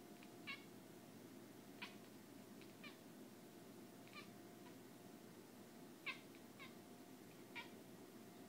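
Domestic cat chattering at prey it is watching, a moth on the window: about eight brief, high squeaks and clicks, spaced irregularly, one or two at a time.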